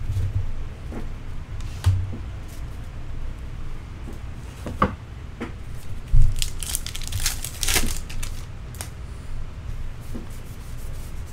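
Trading card pack wrapper being torn open and crinkled by hand, with cards rustling as they are handled. The tearing comes in a quick run of sharp rips about two-thirds of the way through, among a few dull bumps on the table.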